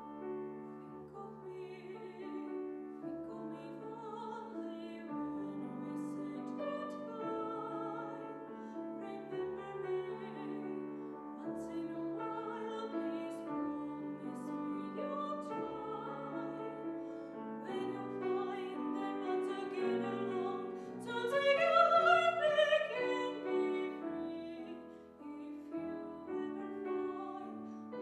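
A woman singing in classical operatic style with grand piano accompaniment; the voice carries vibrato and climbs to its loudest, highest phrase about three quarters of the way through.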